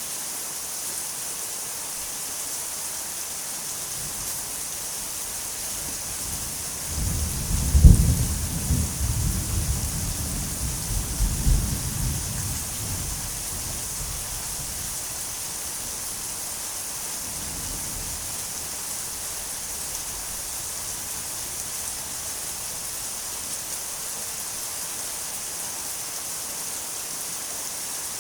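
Steady rain falling, with a roll of thunder about seven seconds in: a sharp low crack followed by a rumble that rolls on for several seconds and fades away.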